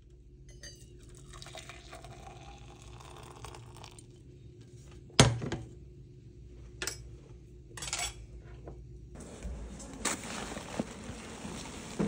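Liquid poured into a stainless-steel tumbler, with a faint rising tone as it fills, then a sharp metallic clink about five seconds in and a few lighter clinks after it. A steadier noise follows near the end.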